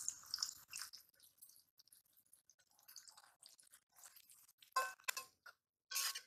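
Metal spatula knocking and scraping against a metal wok while stirring green chillies, onion and garlic: a few short clinks with a brief ring, about five seconds in and again near the end, after a mostly quiet stretch.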